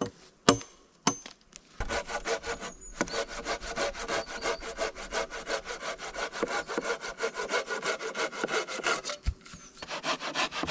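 Folding handsaw sawing through a deadwood log in quick, even strokes. The strokes start about two seconds in, after a couple of light knocks, and stop briefly near the end before going on.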